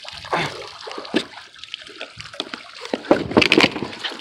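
Water splashing and dripping as a sunken bicycle is hauled up out of the water on a grappling hook and rope, the splashing heaviest about three seconds in.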